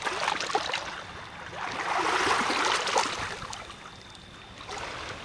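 Lake water lapping and splashing against shoreline rocks, swelling about two seconds in and easing off again, with a few light clicks near the start.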